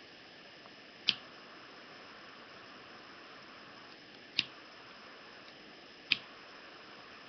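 A lighter clicked three times, sharp single clicks about a second in and twice more a few seconds later, while heat shrink tubing is heated over a soldered wire joint. A faint steady hiss runs underneath.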